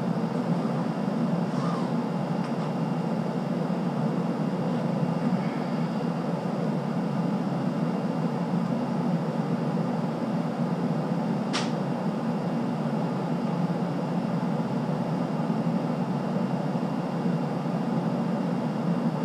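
Steady outdoor background noise, an even low rushing hiss, with a single sharp click about halfway through.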